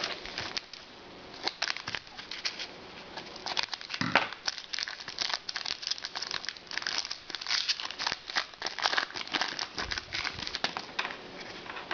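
Trading card pack wrappers crinkling and tearing as packs of hockey cards are opened, an irregular run of crackles.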